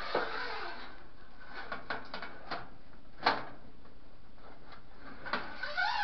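Scattered clicks, taps and scrapes of a flexible metal claw pickup tool and fingers working inside a clothes dryer's lint-screen slot, pulling out lint and paper. One sharper knock comes about three seconds in.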